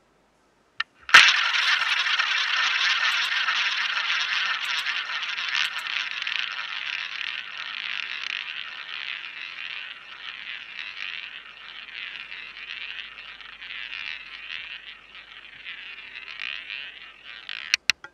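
Roulette ball launched by hand with a click about a second in, then rolling around the ball track of a spinning wooden roulette wheel, a steady rushing whir that slowly fades as the ball loses speed. A few sharp clicks come near the end.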